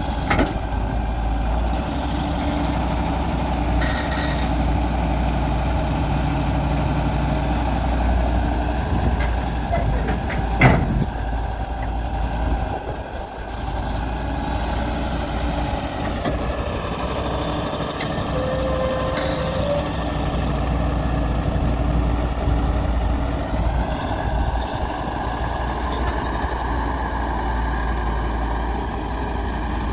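Diesel engine of a Daewoo 170W-3 wheeled excavator running steadily while working, with a sharp metallic clank about ten seconds in.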